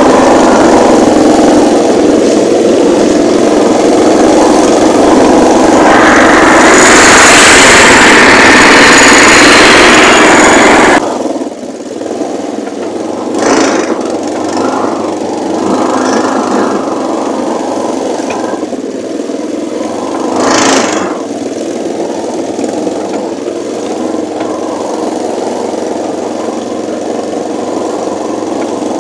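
Small carburetted engine of a homemade Mini Beep amphibious Jeep running as it drives off-road through bush. It is loud for the first eleven seconds, with a louder rushing noise over it in the second half of that stretch. Then it drops suddenly to a quieter level, with two brief rushing swells later on.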